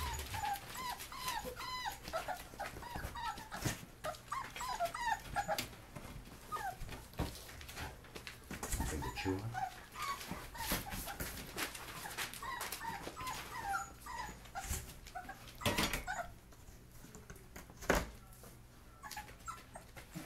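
Five-week-old puppies whimpering and yipping: many short, high, wavering cries in quick succession that thin out after about fourteen seconds. Scattered small clicks run through it, and there are two sharp knocks near the end.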